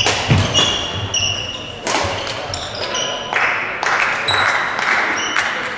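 Badminton rally: shoes squeaking on the court floor and sharp racket hits on the shuttlecock. About three seconds in, voices start up.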